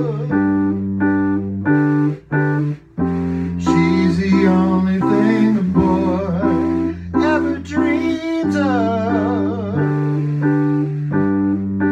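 Electric piano playing an instrumental passage of repeated chords over a moving bass line, with two brief breaks in the playing a couple of seconds in.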